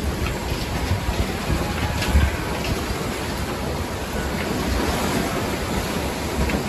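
Storm-surge waves churning and splashing against a seawall, with gusty wind buffeting the microphone and one strong gust about two seconds in.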